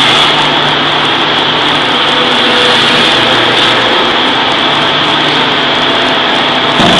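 Loud, steady forge-shop machinery noise: a constant high whine over a low hum, with no separate blows.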